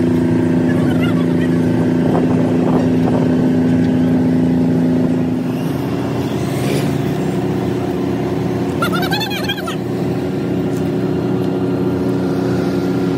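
An engine running steadily at a constant speed, its pitch and level dropping slightly about five seconds in.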